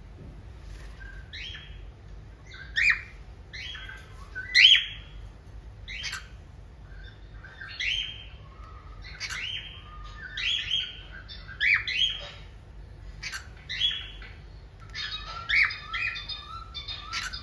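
Cockatiel calling: a series of short chirps and squawks with pitch sweeps, repeated every second or so, closer together near the end.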